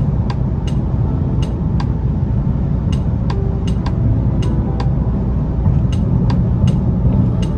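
BMW F80 M3's twin-turbo inline-six and tyres at highway cruising speed, heard from inside the cabin: a steady low rumble of engine and road noise. Light, sharp clicks or ticks come through it irregularly, about two a second.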